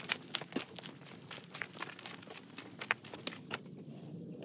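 Footsteps on loose rocky gravel at a walking pace, irregular steps about two a second.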